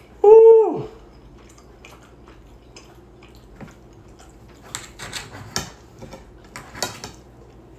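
Steak knife and fork scraping and clicking against a plate while cutting a ribeye, many short scrapes in the second half. Near the start, a brief loud vocal sound that drops in pitch at its end.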